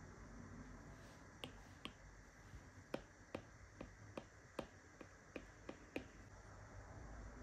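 Apple Pencil tip tapping on the iPad's glass screen while painting: a run of about a dozen light, sharp taps, about two or three a second through the middle, over faint room hiss.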